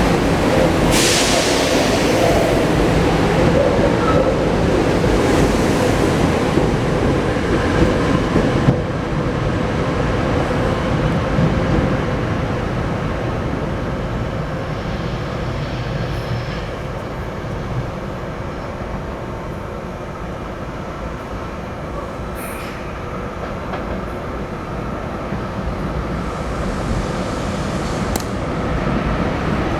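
SEPTA Regional Rail electric train moving through the underground station: a continuous rumble of wheels on rail. It is loudest for the first eight or nine seconds, with a short hiss about a second in, then eases, with a few sharp clicks from the wheels and rail joints before it swells again near the end.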